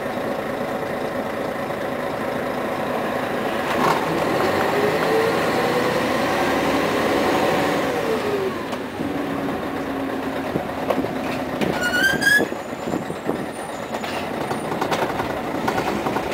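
Scania CN113ALB city bus heard from inside the cabin. The engine runs steadily, then pulls away with a whine that rises from about four seconds in and drops back around eight seconds. A brief high rising squeal comes about twelve seconds in.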